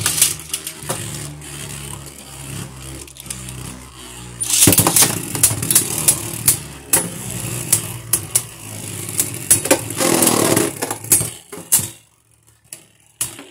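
Two Beyblade Burst QuadStrike spinning tops, Hydra Kerbeus and Fierce Bazalisk, land in a plastic Beyblade stadium with a clatter and spin with a steady whirring hum. From about four and a half seconds in they clash again and again with sharp clacks and a stretch of scraping against each other, then go quieter near the end.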